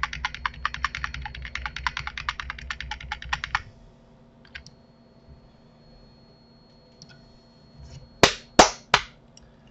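Computer keyboard clicking rapidly, about eight keystrokes a second, for the first three and a half seconds, then stopping. Near the end come three loud, sharp clicks about a third of a second apart.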